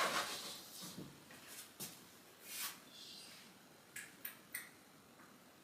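Light handling noises: a few soft knocks and rustles, then three quick sharp clicks about four seconds in.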